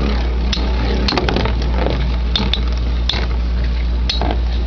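Two Beyblade Metal Fusion tops, one of them Galaxy Pegasis W105R2F on its right rubber flat tip, spinning in a plastic stadium. Their tips give a steady grinding whir on the plastic floor, broken several times by sharp clacks as the metal wheels strike each other.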